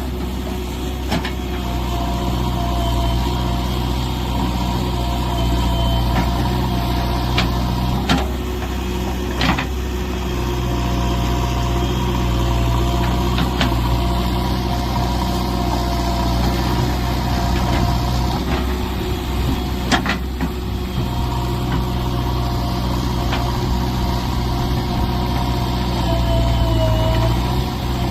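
Diesel engine of a JCB 3DX backhoe loader running steadily, with a wavering whine over it and a few sharp knocks or clanks now and then.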